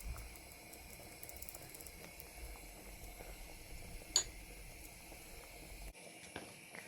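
Faint kitchen handling sounds while spices are added to a pot: scattered light clicks and rattles, with one sharper click about four seconds in, over a low hum that cuts off abruptly near the end.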